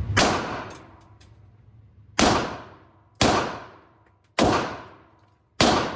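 Five handgun shots fired one at a time at uneven intervals, each a sharp crack followed by a short echoing tail.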